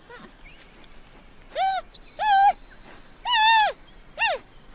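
Giant panda calls: a series of five short bleating calls, each arching up and down in pitch, starting about a second and a half in.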